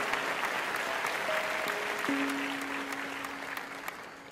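Audience applauding, with a few long held instrumental notes sounding underneath; the clapping thins and fades out near the end.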